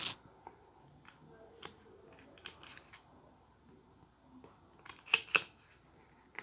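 Utility knife poking through copper foil shielding tape over a plastic pickguard's control holes: scattered small clicks and crinkles of foil and plastic, with two sharp clicks in quick succession about five seconds in.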